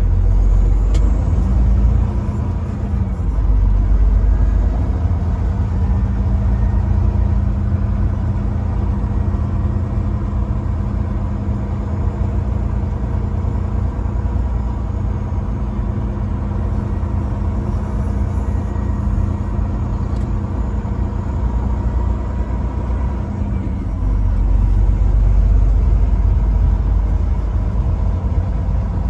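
Truck engine running with a steady low rumble and a steady drone, which dips in pitch about three seconds in and again about twenty-three seconds in.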